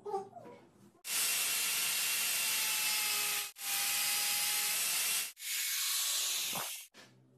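Angle grinder with a cutting disc slicing into PVC pipe in three passes of about two seconds each: a loud, steady hiss with a faint whine, each pass breaking off sharply.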